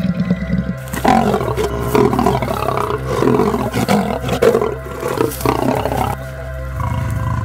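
Male lion giving loud, rough calls from about a second in until about six seconds, over steady background music.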